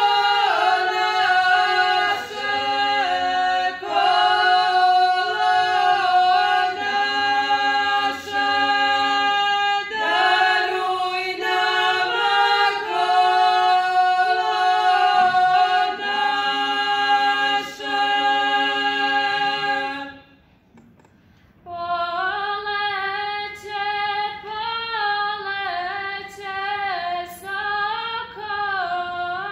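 A group of women singing a traditional Herzegovinian Croatian wedding song (svatovska pjesma) a cappella, the voices holding long notes in close harmony. A bit past two-thirds through, they break off for about a second and a half. A new phrase then starts with a more ornamented, wavering line, led by one singer.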